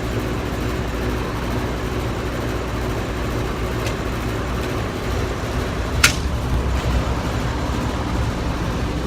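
A single sharp crack from a pellet gun being fired, about six seconds in, over a steady low rumble.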